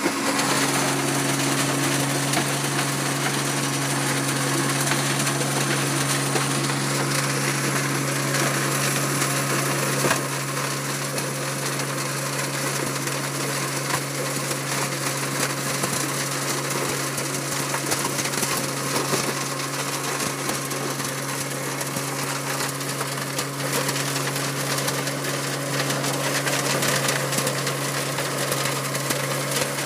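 Road milling machine working: a steady low engine hum over a continuous grinding noise as its cutter works through the road surface.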